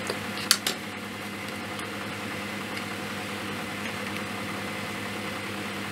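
A few light plastic clicks in the first second as a small LCD module and its clear plastic frame are handled on a circuit board, over a steady background hum.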